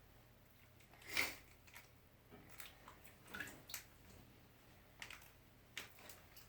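Faint, scattered rustles and squishes of wet hands working at a Play-Doh soap's plastic packaging, trying to peel it open; the loudest about a second in.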